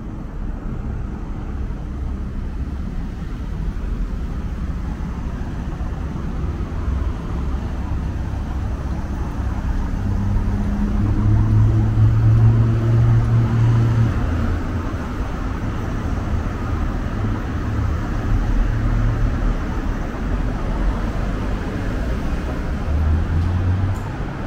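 City street traffic: a steady low rumble, with a vehicle's engine hum swelling to its loudest about halfway through as it passes, then fading.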